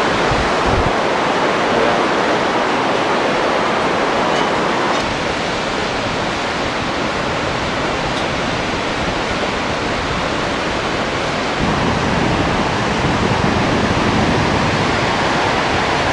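Steady rush of the glacial Milk River (Dudh Kosi) in the gorge below, with wind rumbling on the microphone, heavier from about twelve seconds in.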